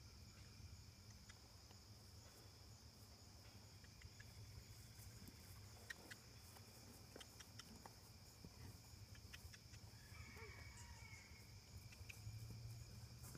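Near silence: faint, steady chirring of insects, with a few soft clicks.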